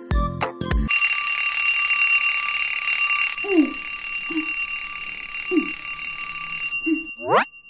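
An alarm clock ringing steadily for about six seconds, then stopping, the wake-up signal for the boy in bed. The last notes of a jingle come before it, and a quick rising whoosh follows near the end.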